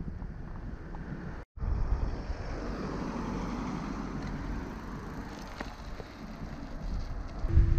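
A van driving past on the road, its tyre and engine noise swelling and then fading, over low wind rumble on the microphone.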